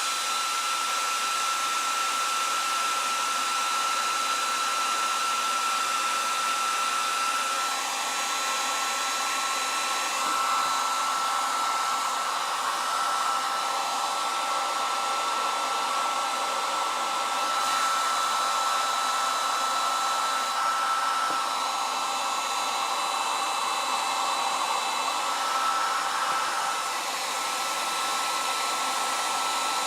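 Hair dryer running steadily on high, a steady rush of air with a constant high whine from its motor, blowing hot air to shrink heat-shrink tubing.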